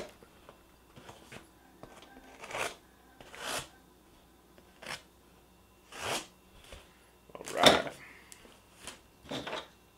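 Small knife cutting the packing tape on a cardboard shipping box, with the box handled in between: a string of short scratchy strokes, the loudest a little past three-quarters of the way in.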